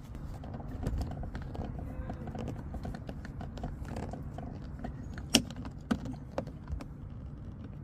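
Small clicks and scrapes of hand work on a car door handle as its back plate is worked loose, with two sharper clicks about five and a half and six seconds in, over a steady low rumble.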